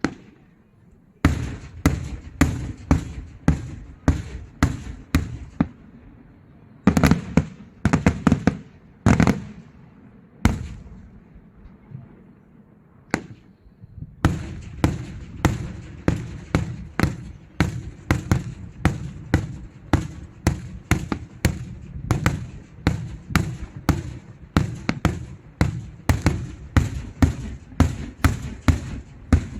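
Fireworks display bursting in rapid succession, sharp bangs about two to three a second. A few louder booms come in the middle, then a short lull with a single bang before the rapid volley resumes.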